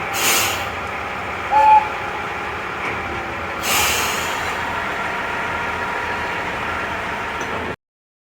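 Diesel railcar running steadily at a standstill, with two short hisses of air from the brakes about three and a half seconds apart and a brief loud beep between them.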